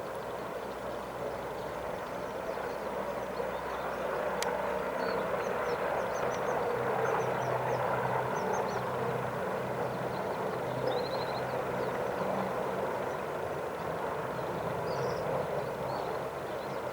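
Distant aircraft engine noise, a steady rushing drone with a low hum that swells about a third of the way in and eases slightly toward the end, with faint high chirps scattered over it.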